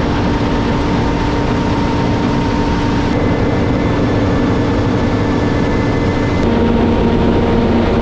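New Holland combine harvesting wheat: engine and threshing machinery running with a loud, steady hum and a few held tones. The sound shifts abruptly about three seconds in and again about six and a half seconds in.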